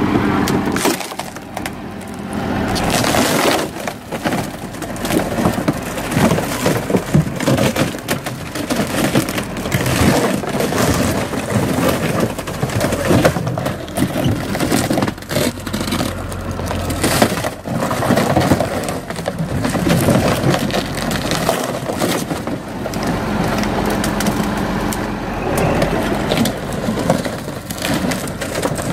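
Fibreglass boat hull cracking, splintering and crunching as a Massey Ferguson 2640 tractor's wheels roll over and crush it: a long run of irregular sharp cracks. The tractor's diesel engine runs steadily underneath.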